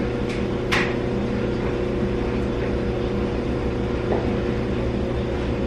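Front-loading laundry machine running with a steady electric motor hum, with a couple of light clicks from clothes being handled at the open drum.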